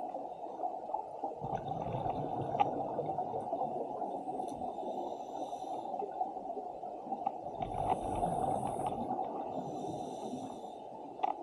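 Scuba diver breathing through a regulator underwater: a steady muffled rumble of water noise, with several hissing breaths and bubbly exhalations lasting a second or two each.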